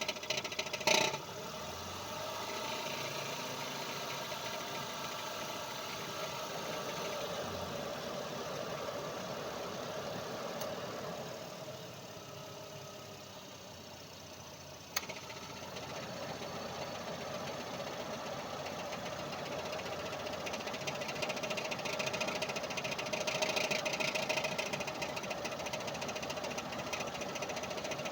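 Mazda RX-8's twin-rotor Renesis rotary engine running with a knock, the knock that the owner puts down to the automatic gearbox's torque converter. The sound eases off for a few seconds in the middle, and a single sharp click comes about halfway through.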